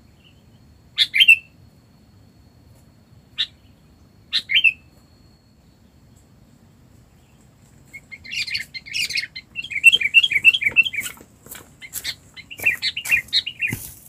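Sooty-headed bulbul calls: three short, sharp notes in the first five seconds, then from about eight seconds in a fast, busy run of bubbly chirping calls.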